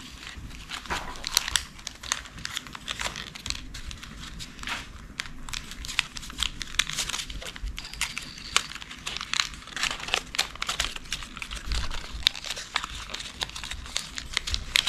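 Folded origami paper rustling and crinkling as flaps are tucked into one another and pressed by hand, with many small crisp crackles.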